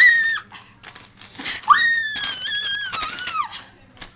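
A child's high-pitched vocal squeals made as a sound effect: a short rising whoop at the start, then a long squeal from about a second and a half in that slowly falls in pitch.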